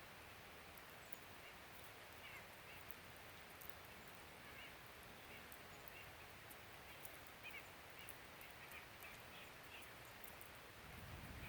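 Faint, short bird calls scattered over a steady outdoor hiss.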